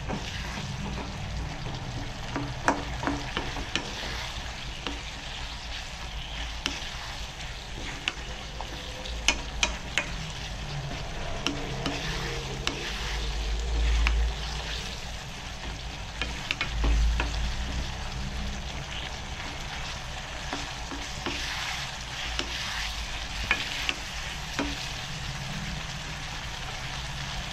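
Rajma and potato curry cooking in a pan while a spoon stirs it, with a steady sizzle and frequent sharp clicks of the spoon against the pan. There are two dull low bumps, about 14 and 17 seconds in.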